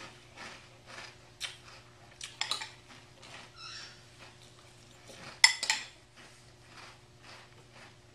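A spoon clinking against a cereal bowl, with a few sharp clinks and a brief ringing tone; the loudest pair of clinks comes about five and a half seconds in. Faint crunches come about twice a second between them as the cereal is chewed, over a low electrical hum.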